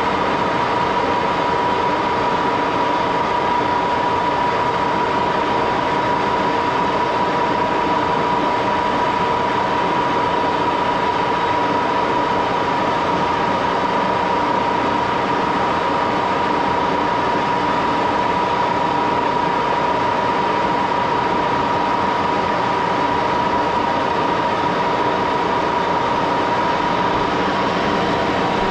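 An 80-year-old Axelson heavy-duty gear-head engine lathe running steadily under power with a constant high whine, turning a 3/8-inch O1 drill-rod workpiece against a carbide tool backed by a follow rest.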